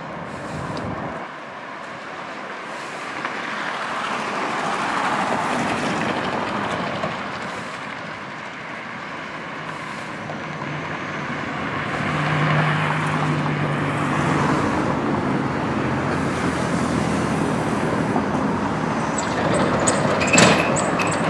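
Urban road traffic, with vehicles passing one after another in swells. A vehicle's low engine hum stands out for a couple of seconds about twelve seconds in, and there is a sharp knock near the end.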